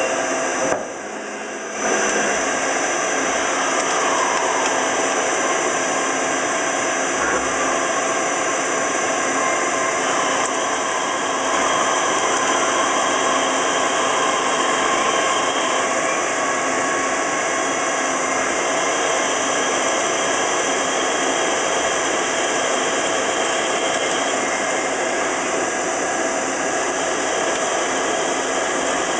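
Miyano ANC-45S CNC lathe running: a steady machine whine with several held tones over a dense mechanical noise, with a brief drop in level about a second in.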